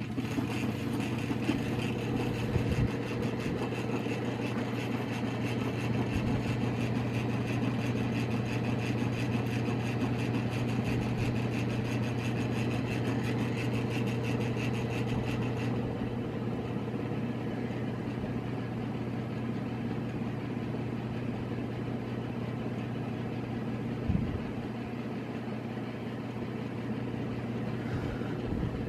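1978 Sears 52-inch friction-drive ceiling fan made by Emerson, running on its built-in solid-state speed control: a very noisy steady hum with a buzz above it. About 16 seconds in, the high buzz drops away and the sound eases a little; there is a sharp click about 24 seconds in.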